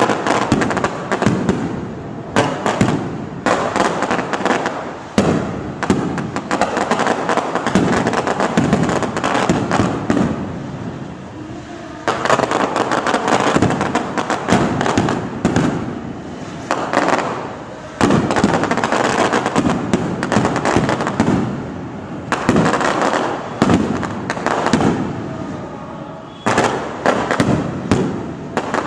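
Barrage of aerial fireworks bursting overhead: a dense, unbroken run of bangs and crackles. Fresh volleys start sharply several times and each trails off.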